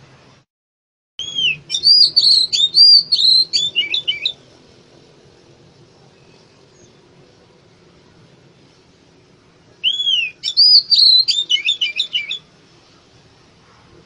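Oriental magpie-robin (kacer) singing: two phrases of rapid, high, arching whistled notes, each about three seconds long, the first beginning about a second in and the second near the ten-second mark.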